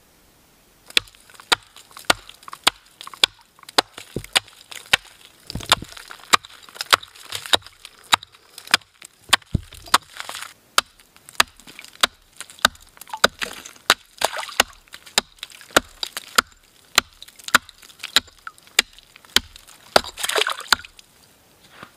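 Wood being chopped with a blade: sharp blows about two a second, with a few longer scraping, splintering sounds between them.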